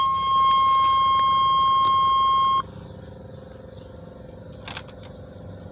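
Steady electronic warning buzzer from the car's dash, a single high tone that cuts off abruptly about two and a half seconds in. Two faint clicks follow in the quiet that comes after it.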